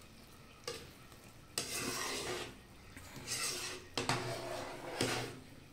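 Metal spoon stirring and scraping through boiling apricot jam in a pot. There are a few strokes, and each one starts with a clink of the spoon against the pot.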